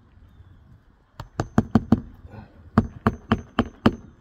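Claw hammer striking a flat pry bar wedged under an asphalt shingle, driving it in to break the shingle's seal and pry out its nails: two runs of five sharp metal-on-metal strikes, about four a second, with a short pause between and a faint ring after the blows.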